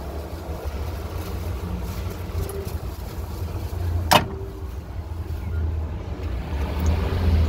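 Steady low rumble of wind on the microphone and street traffic. About four seconds in comes a single sharp knock as the payphone's handset is lifted.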